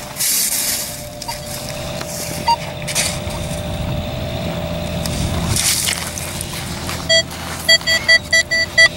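A sand scoop scraping into wet beach sand a few times. Then, from about seven seconds in, a Nokta Makro Legend metal detector gives a quick string of short, same-pitched beeps as its coil passes over the dug hole, signalling the non-ferrous target still in the sand.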